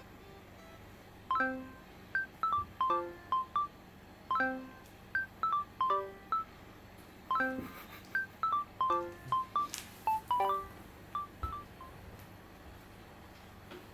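Background music: a light melody of short, bright, quickly fading notes, a few to the second, which stops about eleven and a half seconds in.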